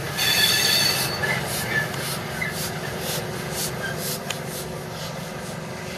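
Steam locomotive hauling passenger coaches slowly past: wheels squealing briefly in the first second, then a steady rumble with a regular beat of about two to three strokes a second, and a single sharp click about four seconds in.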